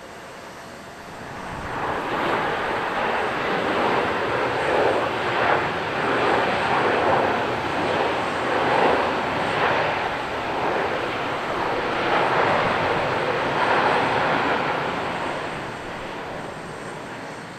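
Jet airliner engine noise that swells up about a second and a half in, holds with a wavering, surging rush, and eases off near the end.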